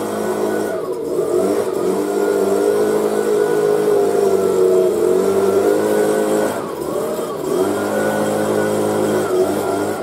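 Leaf blower running loudly. Its pitch dips and comes back up about a second in, and again around seven seconds in, as the engine speed changes.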